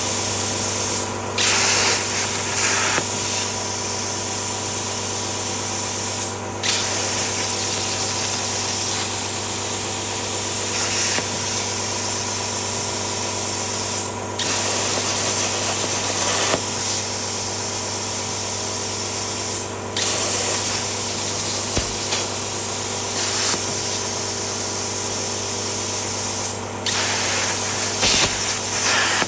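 CNC plasma torch cutting metal: a steady, loud hiss of the plasma arc and air over a constant electrical hum, the hiss brightening and getting louder for a second or two several times during the cut.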